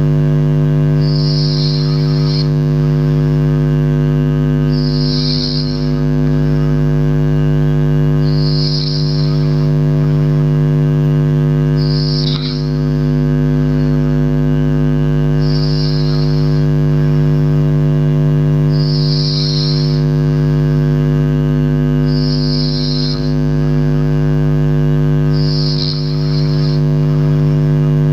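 Sleeper snoring, a short hissing breath about every three and a half seconds in an even rhythm, over a steady droning hum.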